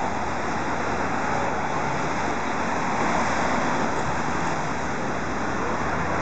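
Steady road traffic noise from cars driving past on a busy city street.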